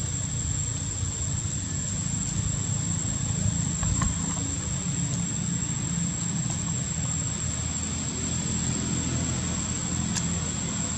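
Steady low outdoor rumble with a thin, constant high-pitched tone above it, and a few faint clicks about four seconds in and again near the end.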